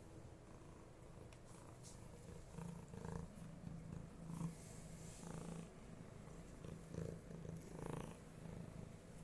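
Domestic cat purring, starting a couple of seconds in and going in broken stretches.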